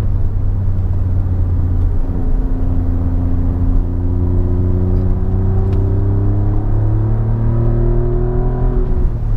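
Alfa Romeo Giulia Quadrifoglio's twin-turbo V6 with an X-pipe in place of the stock resonated mid pipe, heard from inside the cabin while driving. A deep exhaust drone whose pitch climbs steadily for several seconds as the car pulls, then drops near the end.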